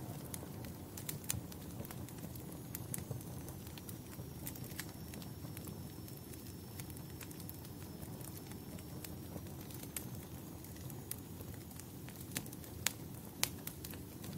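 Wood fire crackling, with irregular sharp pops over a steady low rumble, and a faint high whistle through the middle. The loudest pops come near the end.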